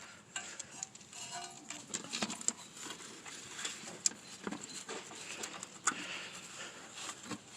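Scattered light clicks and small knocks of hands working an ABS sensor wire and its plug into place behind a truck's front wheel hub.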